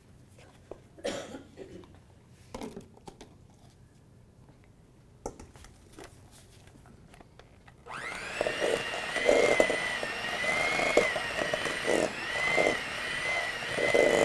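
A handheld electric mixer switches on about eight seconds in and runs steadily, creaming butter in a stainless steel bowl; its whine wavers slightly in pitch over irregular knocking. Before it starts there are only a few soft handling knocks.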